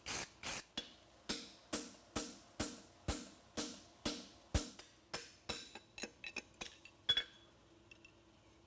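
Hand hammer striking a hot steel horseshoe on an anvil and driving a handled creaser along the shoe's nail groove, about two ringing blows a second. After about five seconds the blows turn lighter and quicker, and they stop about seven seconds in.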